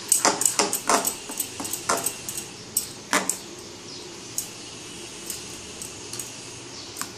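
Metal spoon stirring thick dosa batter in a glass bowl, clinking against the glass in quick runs of clicks for the first three seconds or so, then only now and then.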